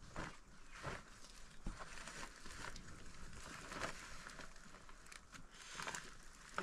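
Faint, irregular rustling and crunching of dry leaves and manure being handled by hand beside a woven bamboo basket, with a few sharper scrapes scattered through.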